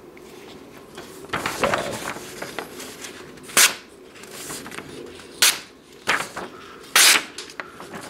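Rustling paper, then several quick, sharp slices as the Spyderco Stretch's ZDP-189 steel blade cuts through a hand-held sheet of paper. The cuts are clean, the sign of a very sharp edge.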